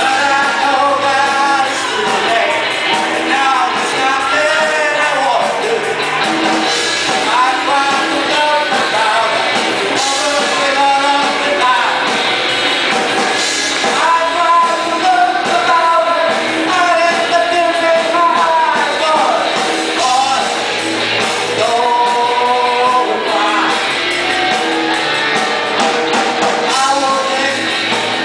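Live rock band playing a song with a lead singer, electric guitars, bass and drums.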